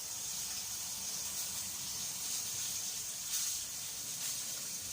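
Steady high hiss of background noise with no distinct events.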